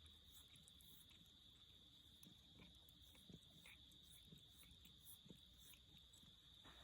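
Near silence: faint room tone with a steady, unbroken high-pitched hum and a few soft ticks.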